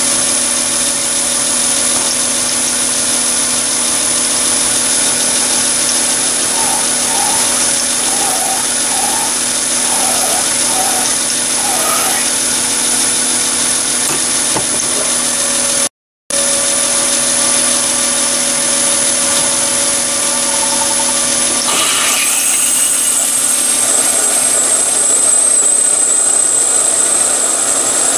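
Chinese mini lathe running steadily at about 880 rpm with its constant motor whine while a centre drill and then a twist drill cut into spinning brass bar. The sound cuts out for a moment about halfway through. Near the end the sound changes and a high-pitched whine comes in as the drill cuts.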